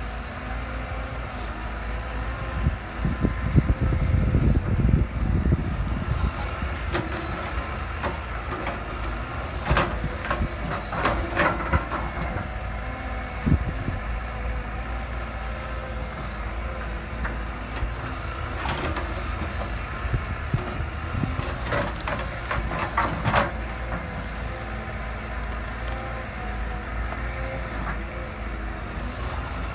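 Heavy diesel machinery running steadily, with intermittent knocks and clanks of working equipment.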